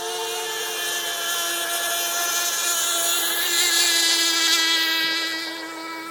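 Radio-controlled model racing boats, one with a nitro engine, running at speed with a high-pitched buzzing motor whine. The sound grows louder to a peak about four to five seconds in as the boats pass close, then falls away.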